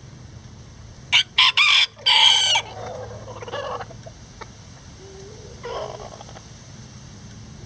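A bantam rooster crowing once, about a second in: a few short opening notes, then a long drawn-out final note that trails off. A shorter, quieter chicken call follows later.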